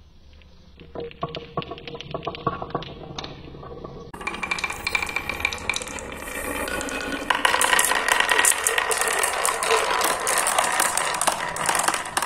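Marbles clicking and rolling against each other in carved wooden marble-run grooves. There are sparse separate clicks at first. About four seconds in it turns into a steadier rolling clatter, which grows into a dense rattle of many marbles knocking together from about seven seconds on.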